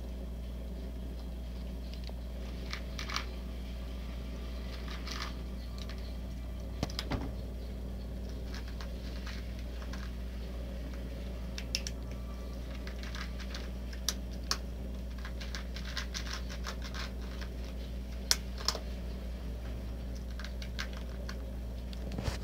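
Cats chewing dry kibble from a plastic tub: irregular small crunches and clicks, coming thicker in the second half, over a steady low hum.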